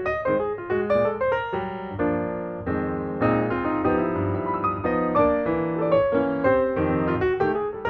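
Background piano music: quick runs of notes over chords, with longer held chords in the middle.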